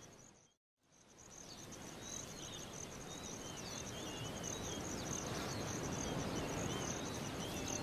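Grassland ambience: a steady, high, pulsing insect trill with small birds chirping, fading in after a brief dropout near the start.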